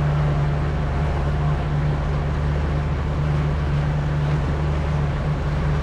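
Motorboat engine running steadily under way, with wind and water rushing past the hull.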